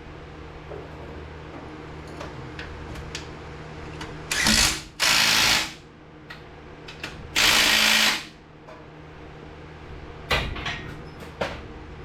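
Power tool run in three short bursts, each under a second long, with scattered clicks and knocks of tools between them over a steady low hum.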